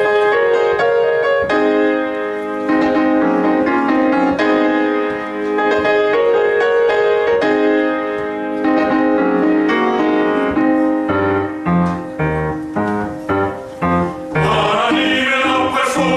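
Piano introduction to a church choir anthem, playing chords and a moving melody; the choir comes in singing near the end.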